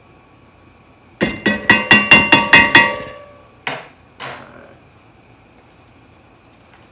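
A metal utensil rapped against a frying pan, about nine quick ringing taps in a row followed by two more single knocks, as butter is knocked off into the pan.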